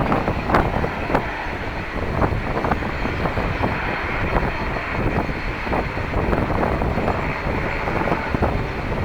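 Jet airliner engines running at a steady, loud level, as heard from outside near the runway.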